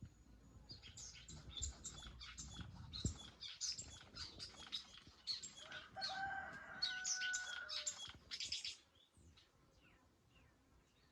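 Birds chirping in a dense, rapid chorus of high chirps, with a longer steady call in the middle. The chorus stops suddenly about nine seconds in, leaving only faint scattered chirps.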